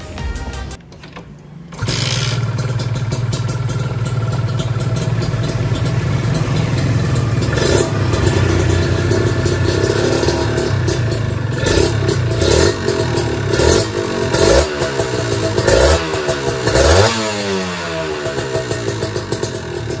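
Kawasaki Ninja 150 RR two-stroke single-cylinder engine running through an Arrow aftermarket exhaust. It comes in about two seconds in and runs steadily, then is blipped with short throttle revs that come more often toward the end.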